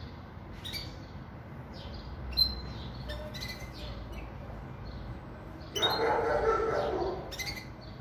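Caged pintagol, a pintassilgo × canary hybrid, giving scattered short high chirps. About six seconds in, a louder, lower sound lasts about a second and a half.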